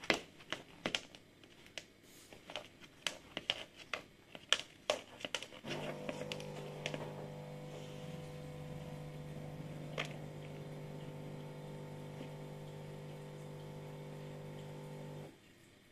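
Tortoise claws clicking irregularly on a laminate floor as it walks. About six seconds in, a steady hum with several fixed pitches starts, then cuts off suddenly near the end.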